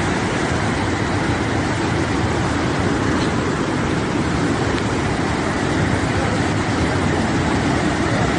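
Loud, steady rush of a river in full flood, fast-moving floodwater churning past below the bridge.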